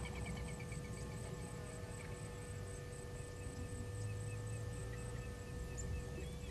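Outdoor bush ambience: a low steady rumble and a faint hum, with faint high chirping repeating a few times a second, from an insect or a bird.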